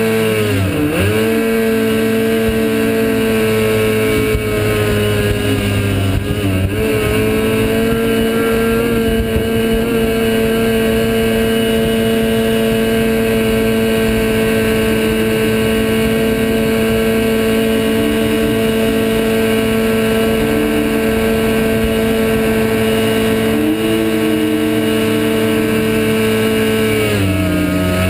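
Kawasaki ZX-10 inline-four engine of a jet dinghy running at high, steady revs. The revs dip briefly about a second in and again around six seconds, and fall off near the end.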